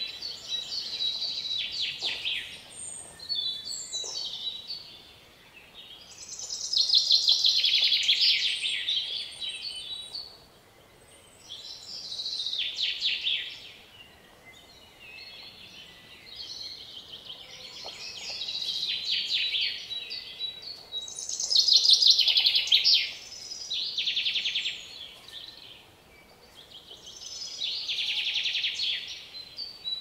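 Songbirds chattering and chirping in high-pitched bursts of a second or two, several seconds apart, loudest about a quarter of the way in and again a little past two-thirds through.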